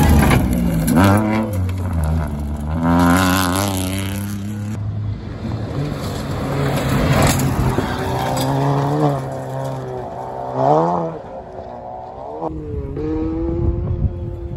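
Rally cars running flat out on a gravel stage, one after another: engines revving high and dropping back through gear changes several times as the cars pass and pull away.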